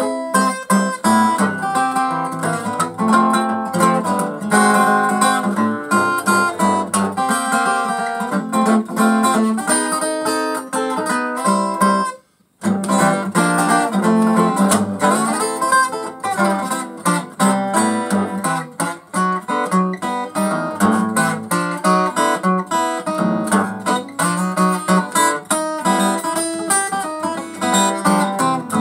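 Takamine EF360S-TT acoustic guitar, a damaged guitar with cracked sides, played solo blues, notes picked and strummed with a jangly ring. The sound cuts out abruptly for about half a second roughly twelve seconds in, then the playing carries on.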